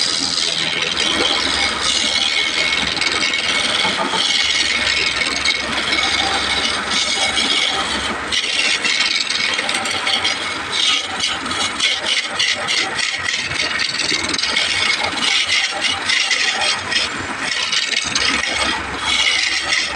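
Hand turning chisel cutting into a large wooden blank spinning on a lathe: a loud, continuous scraping hiss as shavings peel off, turning choppier and rattling from about eight seconds in.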